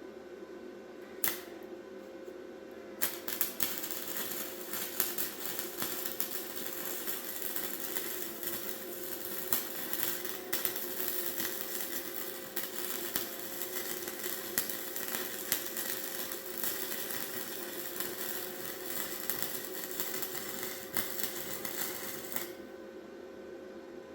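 Electric arc welder crackling: a brief tack about a second in, then one long continuous weld bead that stops abruptly near the end.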